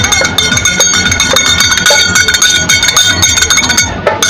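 Karadi majalu folk percussion ensemble playing: hand cymbals clash again and again and ring on over a steady beat of the karadi and sambal drums.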